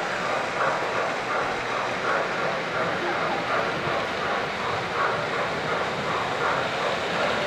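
Electric O-gauge model trains running on three-rail tinplate track: a steady running noise of motors and wheels on the rails.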